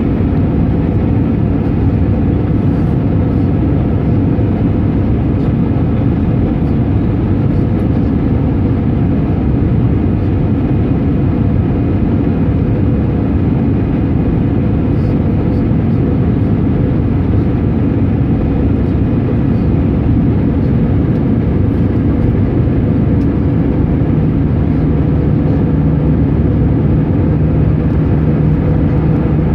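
Airbus A320 cabin noise in the climb after takeoff: the steady drone of the jet engines and rushing air heard through the fuselage. A low steady hum joins in near the end.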